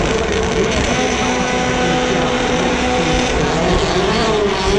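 Rally1 car engine at high revs on a gravel special stage, holding a steady note, then dropping and climbing again near the end as the driver lifts and gets back on the throttle.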